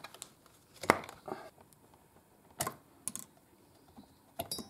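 Handling noise from the dismantled saw's plastic housing and its wires being pulled free: a few sharp clicks and knocks, the loudest about a second in.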